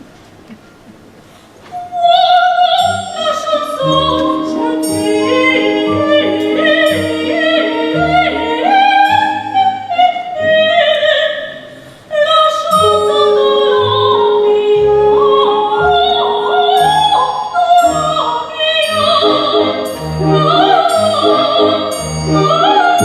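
Operatic singing with orchestral accompaniment. After a quiet first two seconds the music starts, and a voice holds long sustained notes over the orchestra, with a brief drop about halfway before it picks up again.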